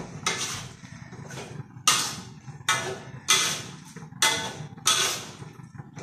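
Metal spatula scraping against a wok as pak choy is stir-fried, in repeated strokes a little faster than one a second, each a short rasp that fades quickly.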